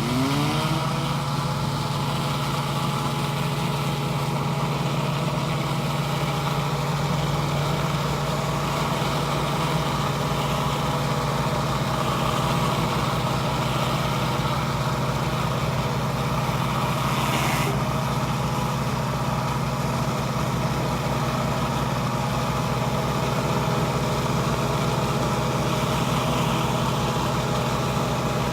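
Pressure washer engine running at a steady speed, with a constant hum that settles into pitch within the first second.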